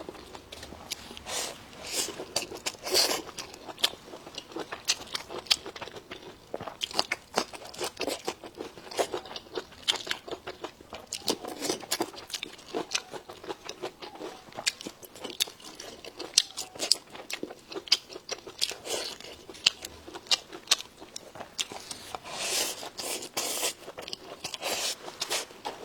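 A person chewing and crunching food close to the microphone, with many irregular crisp bites and wet mouth sounds.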